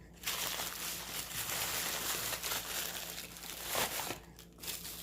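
Packaging crinkling steadily as it is handled, for about four seconds, then dying down to lighter rustles near the end.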